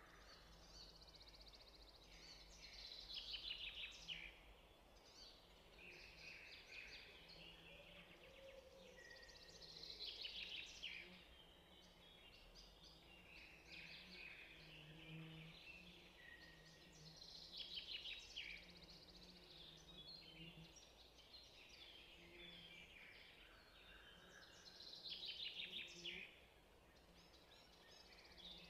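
Faint birdsong: songbirds singing short trilled, chirping phrases every three to four seconds over a quiet background hiss.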